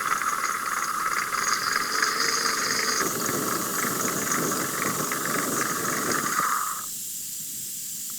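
Pressure cooker whistle blowing off steam: a loud, steady hiss that cuts off abruptly about seven seconds in. It is one of the whistles counted to tell when the dal inside is cooked; at least five are wanted.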